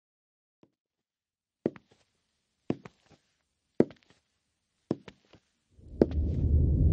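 Slow footsteps of high heels, about six sharp clicking steps roughly a second apart, each a quick double click, the first one faint. A loud low droning hum sets in shortly before the end.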